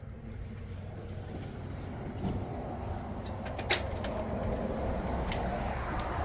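A steady low rumbling noise that slowly grows a little louder, with a few faint clicks and one sharp click a little past the middle.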